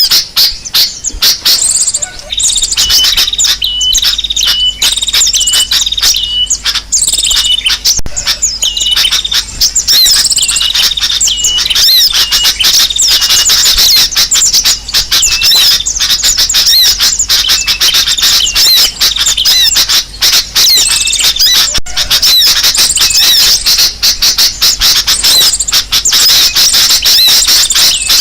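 Dense, loud chorus of many small birds chirping, twittering and squawking at once without a break: a 'burung ribut' (noisy birds) bird-lure recording of agitated calls used to draw birds in. A few seconds in, one bird repeats a short note over and over.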